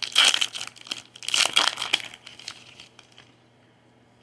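Foil wrapper of a Topps Series 1 baseball card pack crinkling as it is torn open and pulled off, in two loud bursts over the first two seconds, then a few light rustles.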